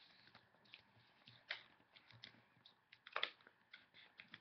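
A sheet of paper being folded and creased by hand: faint, scattered rustles and crinkles, the loudest a little after three seconds in.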